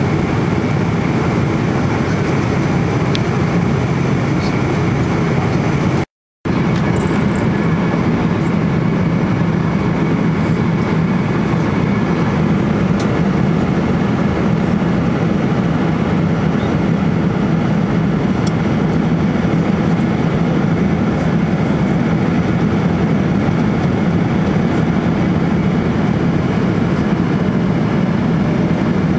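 Steady in-flight cabin noise of a Boeing 777-300 airliner: the low drone of the engines and the airflow, heard from an economy seat. It cuts out briefly about six seconds in.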